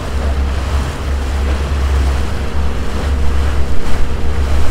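Small passenger motor launch under way: a steady low engine drone with water rushing along the hull and wind buffeting the microphone, gustier in the second half.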